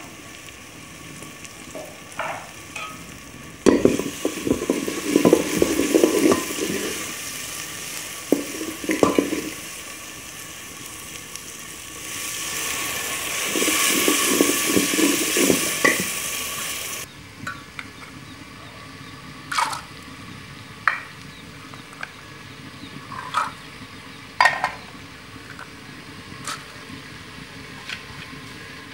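Onion-and-tomato masala frying in an aluminium pot, stirred in bursts with a ladle. About twelve seconds in, water is poured in from above and sets off a loud rushing sizzle that lasts about five seconds and stops suddenly. After that there are a few faint, separate clinks.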